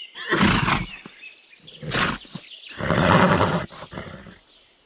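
Horse calling: three rough, breathy blasts, a short one in the middle and the last the longest.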